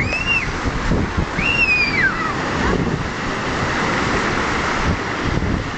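Sea surf breaking and washing between rocks on the shore, a steady rushing wash. Twice in the first couple of seconds a high cry rises and then falls away over it.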